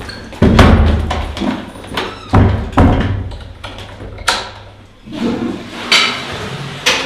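Wooden toilet-stall doors banging: a heavy thud about half a second in, two more close together a couple of seconds later, then several sharper bangs.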